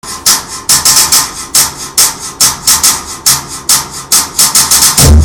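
Music intro: a rhythmic pattern of sharp, hissing scraped-percussion strokes, like a güiro or shaker, a couple to several per second. Just before the end the bass and kick drum come in and the full beat starts.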